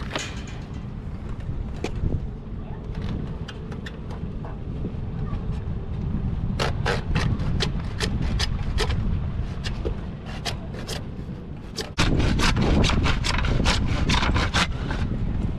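Hand saw cutting partway into a white PVC tee fitting: quiet at first, then steady sawing strokes from about six seconds in, about two a second, quickening to about four a second near the end. Wind rumbles on the microphone throughout and gets louder with a gust about twelve seconds in.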